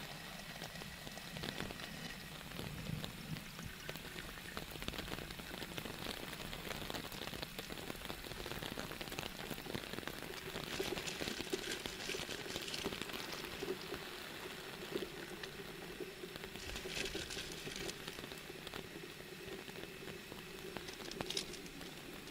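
Steady rain falling on a tent, with a butane canister camping stove burning under an aluminium kettle of water heating. A steady hum sets in about halfway through. A plastic bag crinkles in short spells near the middle and toward the end.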